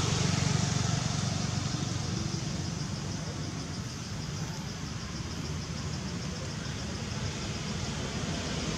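Steady low rumble that eases off in the middle and swells again near the end, with a faint fast high-pitched ticking over it for much of the time.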